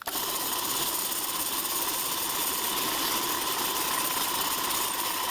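Round-column milling machine switched on abruptly, its motor and spindle running steadily with a steady whine over a broad hiss.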